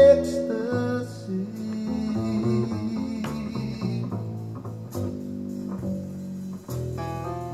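Music played through a pair of DALI Zensor 3 bookshelf speakers driven by a Pioneer amplifier: a slow guitar-and-bass passage with held notes, between sung lines.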